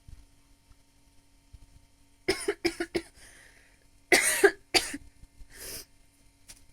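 A woman coughing hard in a fit after choking on a sip of energy drink. A quick run of three or four coughs comes about two seconds in, then a gasping breath, then two louder coughs a couple of seconds later and a softer wheezy breath.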